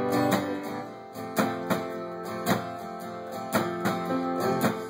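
Acoustic guitar strumming chords in a steady rhythm, an instrumental stretch of a live song.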